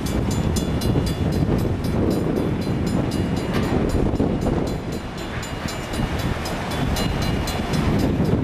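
Railroad crossing bell ringing with rapid, evenly spaced strikes while the crossing signal is active, over a low rumble of road and wind noise.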